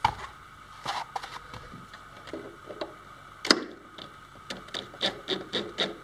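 Cordless DeWalt drill driving screws into plywood in short bursts, ending in a run of quick pulses about four a second, mixed with knocks and clicks of wood being handled; the loudest is a sharp knock about halfway through.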